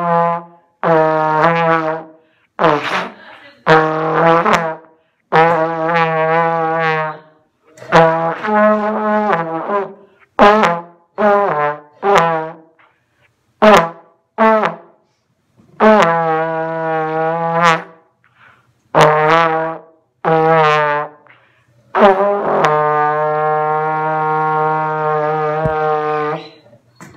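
Trombone playing a simple tune: a string of separate held notes with short breaks between them, some wavering in pitch, ending on one long held note.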